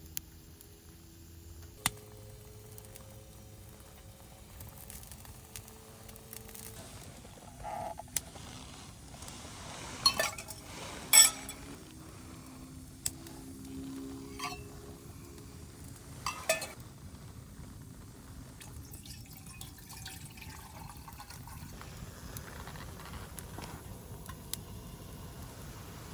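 Firewood burning in a steel fire pit, a steady hiss with thin whistling tones now and then and about half a dozen sharp pops or clinks spread through, the loudest about eleven seconds in.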